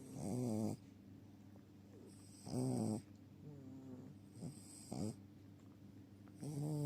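Chihuahua snoring in its sleep: short pitched snores with a breathy hiss, one every two seconds or so.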